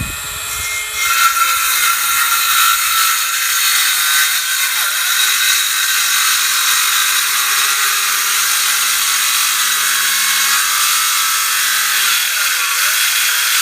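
Ryobi 18-volt 5.5-inch cordless circular saw cutting steadily through a thick, dense MDF board, its pitch sagging briefly a couple of times under load without stalling.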